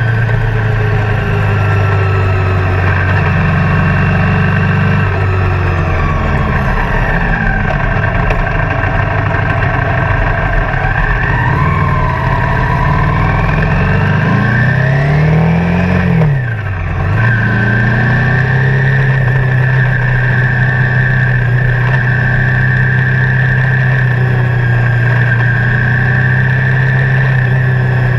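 Motorcycle engines running at road speed. The engine note eases down and climbs again, drops sharply about sixteen seconds in as the bikes slow through a corner, then settles back to a steady note.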